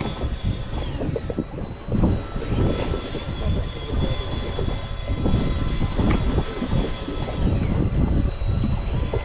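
Spinning reel being cranked hard while fighting a fish, with a thin steady whine from its gears, over loud rumbling wind and sea noise on a small inflatable boat.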